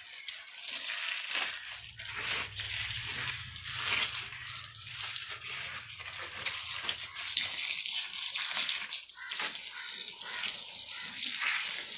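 Water spraying from a garden hose onto plants, a steady hiss. A low rumble runs under it from about two to seven seconds in.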